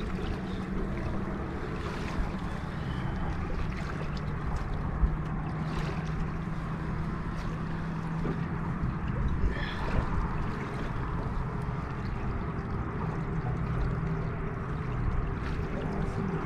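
Steady low motor hum from a boat, with water and wind noise and a few faint knocks.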